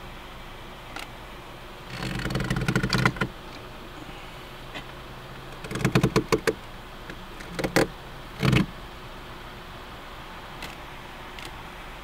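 Smartphone being handled in a plastic phone mount hanging from a car's rear-view mirror: clicking and rattling in four bursts, the longest about two seconds in and a cluster about six seconds in, then two short ones.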